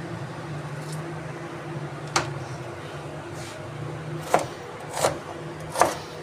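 Chef's knife cutting through small red onions onto a plastic cutting board: a few separate sharp knocks of the blade hitting the board, the clearest about two seconds in and three more in the last two seconds, over a steady low hum.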